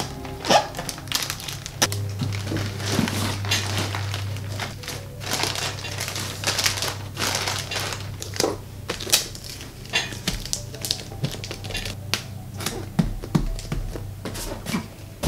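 Crinkling and rustling of tissue paper and bubble wrap and handling of a cardboard shipping box as a painting is packed, with many short rustles and clicks, over background music.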